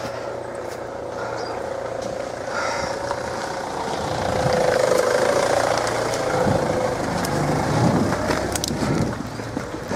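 A pack of foxhounds giving tongue in a long, wavering chorus that swells about four seconds in. Wind buffets the microphone and the handheld camera knocks in the second half.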